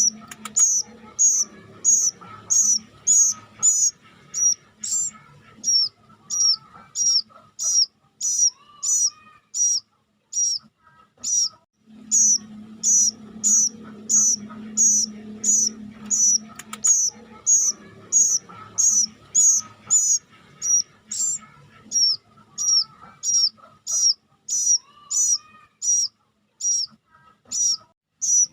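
Plaintive cuckoo chick calling over and over in short, sharp, high-pitched notes, about two a second, with a brief pause about ten seconds in. A faint low hum sits underneath for a few seconds in the middle.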